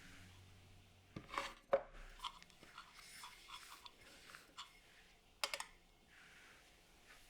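A few sharp knocks and clicks with light scraping and rubbing in between, the sounds of small household objects being handled.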